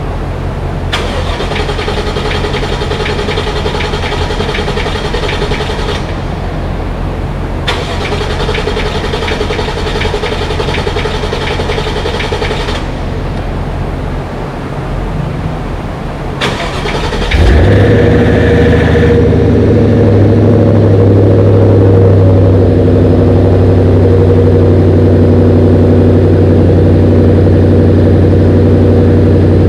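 Starter cranking the supercharged Gen 1 Coyote 5.0 V8 in two bursts of about five seconds each to prime the oil pump after an oil pump gear install. A third crank catches at about 17 seconds, and the engine fires and settles into a steady, louder idle without much valve-train racket, a sign that the cam timing is set right.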